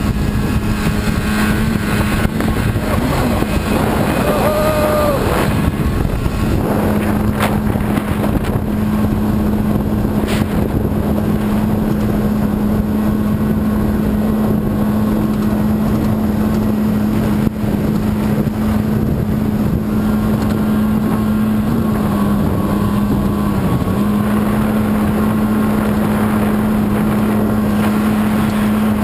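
Bass boat's engine running steadily at speed, with a rush of wind and water noise. Its pitch dips briefly a couple of times about three-quarters of the way through.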